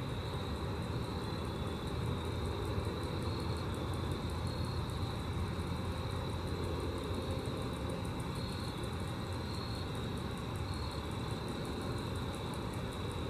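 Grasshoppers stridulating: a steady high buzz with a rapid, even ticking over it, above a constant low rumble.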